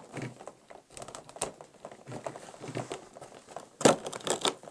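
Stiff cardboard advent-calendar window being pried and torn open, giving irregular scraping and crackling of the card, with a louder crackle about four seconds in.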